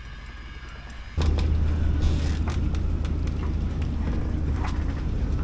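Strong wind buffeting the microphone: a loud low rumble that starts abruptly about a second in, with scattered light knocks from the rigging.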